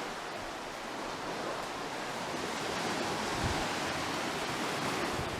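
Steady wash of sea surf.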